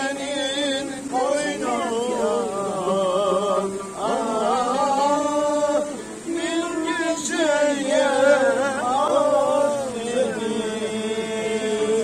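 Music with a voice singing long, ornamented phrases that waver in pitch, broken by short pauses between phrases.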